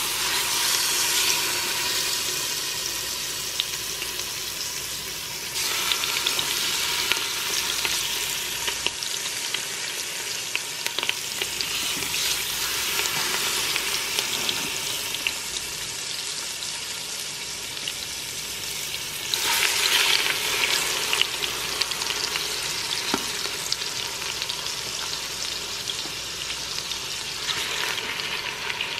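Seasoned chicken thighs searing in hot butter in an Instant Pot's stainless steel inner pot on the sauté setting: a steady sizzle that starts suddenly as the first piece goes in and flares up about six seconds in and again near twenty seconds in as more pieces are added.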